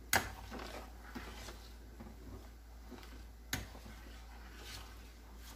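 Metal spoon stirring a thick, creamy stew in a stainless steel stockpot, scraping softly with small clinks against the pot. It knocks sharply against the pot twice, just after the start and about three and a half seconds in.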